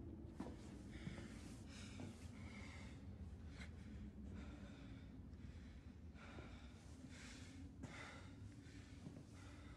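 A man breathing heavily and unevenly, short breaths in and out about once a second, over a quiet low drone, with a few faint clicks.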